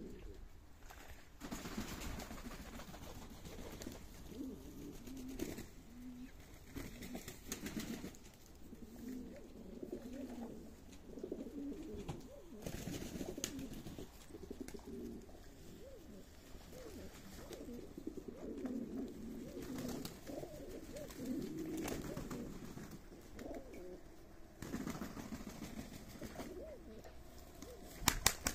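A flock of domestic pigeons cooing, many low voices overlapping without a break. Two short sharp clicks near the end.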